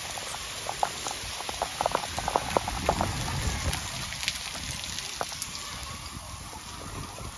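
Heavy rain pouring down in a steady hiss, with many close drips and splashes that are thickest about two to three seconds in.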